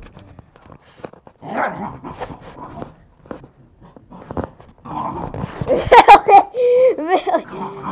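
A dog growling and barking in play, loudest in a burst of sharp sounds about six seconds in.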